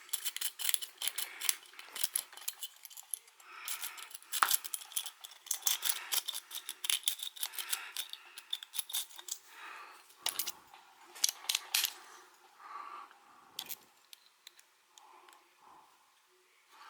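Metal lock pick raking in a padlock's keyway: rapid, irregular clicking and scraping of metal on metal as the pins are worked, thinning out to occasional ticks near the end.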